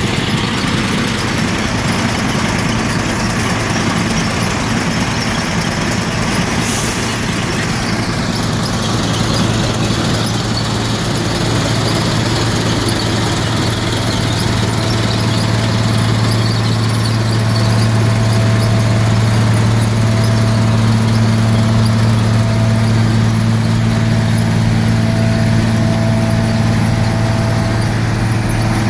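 Heavy railway machinery running: a loud, steady deep engine hum that grows stronger in the second half, with a brief high squeal about seven seconds in.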